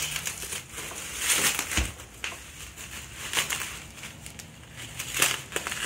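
Bubble wrap crinkling and rustling in irregular bursts as it is pulled off a metal plate.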